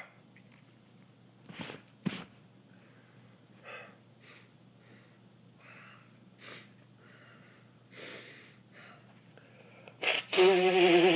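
A man sniffing and breathing in short, faint snatches several times through a tickly nose. Near the end comes a loud, drawn-out voiced sneeze.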